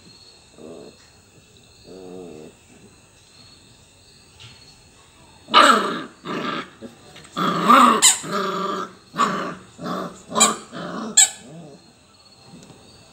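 Labrador puppy play-growling over a rubber toy in its mouth: two soft growls in the first few seconds, then from about halfway in a run of louder growls broken by several sharp yapping barks.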